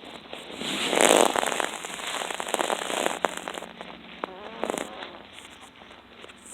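Snoring: loud, crackly snorts, the loudest about a second in, with a short wavering pitched note a little before the five-second mark.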